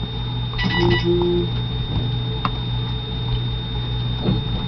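Steady low electrical hum with a thin high whine over it, and a short beep-like tone about a second in.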